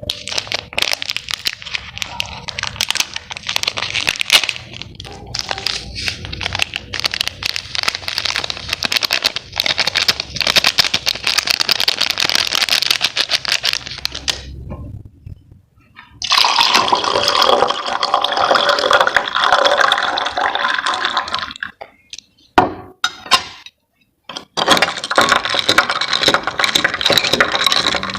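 Close-up drinking of a cold mango-flavoured drink: wet, crackly slurping and gulping in long stretches, broken by two short pauses.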